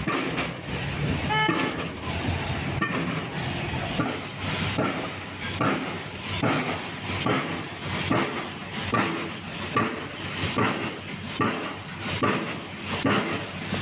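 A 10-ton pile-driving hammer striking a PHC concrete pile through its hammer cap, a steady rhythm of heavy blows a little more than one a second as the pile is driven into the ground. A short horn-like tone sounds about a second in.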